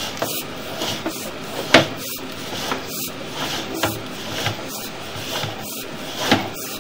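Sewer inspection camera's push cable being fed along a drain pipe: steady rubbing and scraping with irregular knocks, the two sharpest about two seconds in and near the end.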